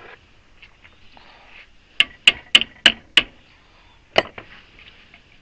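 Six sharp knocks: five quick ones about three a second, then a single one about a second later.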